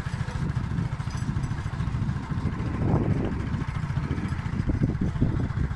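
Small vehicle engine running at a steady speed with a rapid low pulsing beat.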